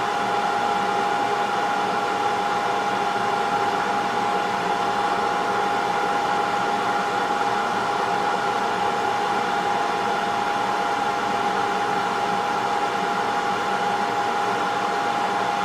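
Hot-air rework station's blower running steadily, a rush of air with a constant whine, as it heats the board to desolder the HDMI ports.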